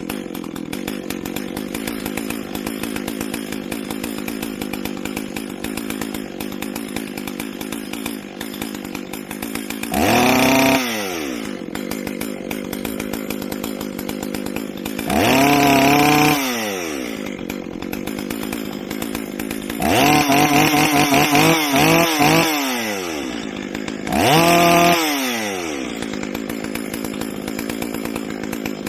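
Stihl 044 two-stroke chainsaw idling, revved up sharply and let fall back to idle four times: once about a third of the way in, again about halfway, then a series of quick throttle blips, and a last rev near the end.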